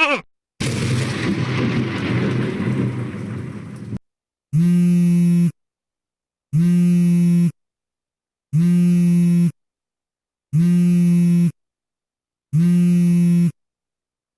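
Explosion sound effect: a rumbling blast that dies away over about three seconds and then cuts off. It is followed by a flat buzzer-like tone sounded five times, each about a second long and two seconds apart.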